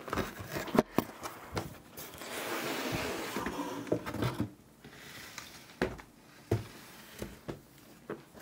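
Cardboard box flaps rustling and scraping as a black hard carrying case is pulled out of the box, followed by several knocks as the case and box are set down on a table.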